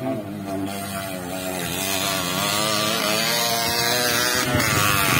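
Motorcycle engine approaching on a dirt race track, growing steadily louder, its pitch rising and falling with the throttle.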